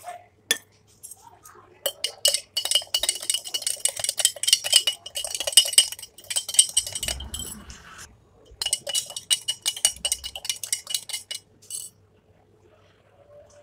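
Metal spoon whisking coffee quickly in a glass mason-jar mug, clinking rapidly against the glass in two long runs with a short pause between.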